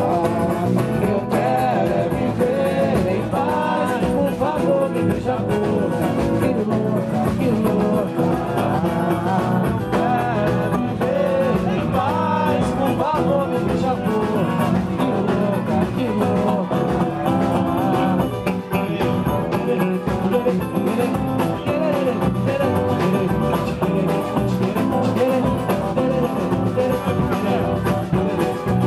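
Live samba band playing: a cavaquinho and guitar strumming with hand drums keeping the rhythm, and a voice singing over them.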